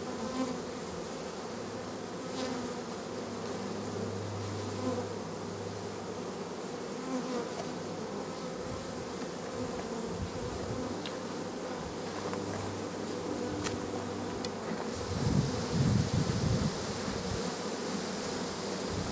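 A mass of honey bees buzzing over an open hive in a steady, droning hum; the bees are pretty aggro. Near the end, wind buffets the microphone in low rumbles.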